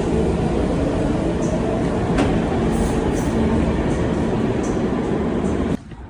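Subway train running, a loud steady rumble with a motor whine rising in pitch at the start; it cuts off suddenly near the end.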